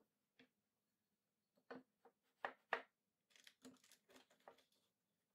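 Near silence broken by a few faint, short knocks and clicks of a wooden stile being handled and set into a wooden fixture, the two loudest a quarter-second apart about two and a half seconds in.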